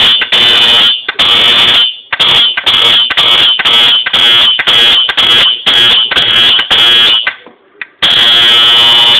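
Fire alarm horn sounding a harsh, high buzzing tone in quick on-off pulses, about two a second. It stops for under a second, then sounds steadily near the end.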